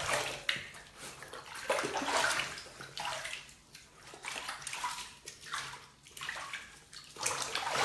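Bathwater sloshing and splashing in a tub as a dachshund is held and washed in it, coming in irregular surges about once a second.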